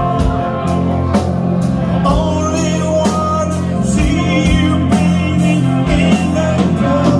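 A live rock band playing: electric guitars and bass holding sustained chords over a drum kit keeping a slow beat, about one hit a second, with a voice singing.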